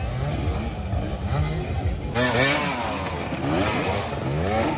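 Dirt-bike engines revving up and down, more than one at a time, the pitch rising and falling with each twist of the throttle.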